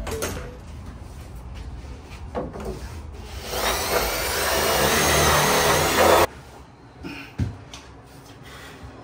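A small electric motor runs for about three seconds, rising slightly in pitch, then cuts off abruptly. Scattered knocks and handling noise come before and after it.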